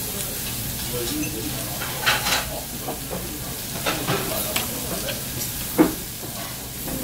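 Lamb and vegetables sizzling on a dome-shaped Hokkaido-style Genghis Khan grill, with a handful of sharp metal clicks from tongs and scissors working the meat on the pan, the loudest a little before the end.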